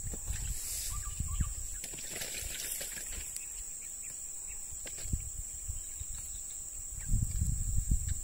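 Outdoor rural ambience: a steady high-pitched insect drone, with low rumbling and soft thumps that grow louder near the end.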